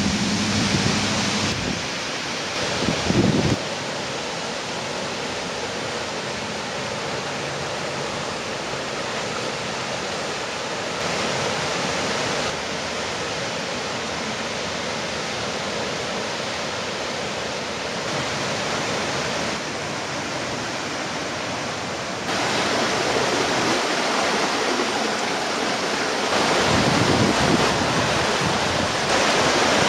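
Flood-swollen river rushing steadily past stone walls, with gusts of wind on the microphone in the first few seconds. The rush grows louder about three-quarters of the way through.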